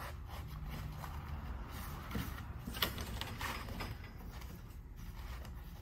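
Headliner fabric and its bows being handled: soft rustling with a few light clicks and scrapes, the sharpest a little under three seconds in, over a low steady hum.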